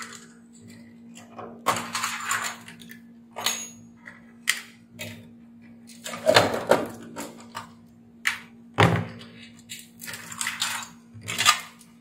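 Irregular clicks, knocks and short rustles of gloved hands handling wiring and plug connectors inside an opened oil-fan heater's casing, over a steady low hum.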